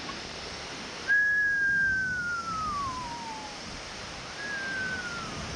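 Two long, clear whistles sliding down in pitch, the first lasting about two and a half seconds and the second shorter, near the end, over the steady rush of a waterfall.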